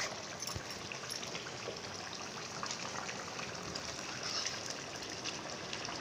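Rice and vegetables boiling in water in a metal pot: steady bubbling with many small pops.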